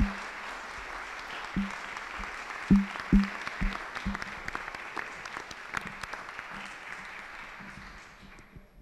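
Audience applauding, dying away near the end, with several loud low thumps in the first four seconds.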